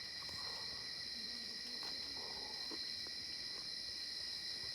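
Steady chorus of insects such as crickets, a continuous high-pitched trill that holds without a break.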